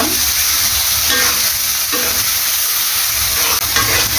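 Tiger prawns sizzling in oily masala in an aluminium karahi, the spice paste cooked down until the oil has risen to the top. A metal spatula stirs and scrapes the pan at times.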